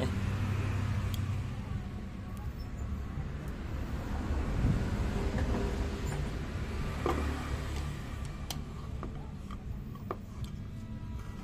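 Small metallic clicks and taps from a screwdriver working the screws of a Rinnai gas stove's burner valve and igniter assembly, coming more often near the end. A steady low rumble runs underneath.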